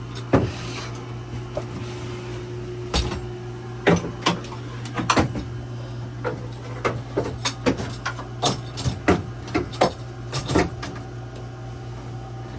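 Irregular knocks, clicks and clatter of hands and tools working on the boat's steering gear, about fifteen sharp hits spread unevenly, over a steady low hum.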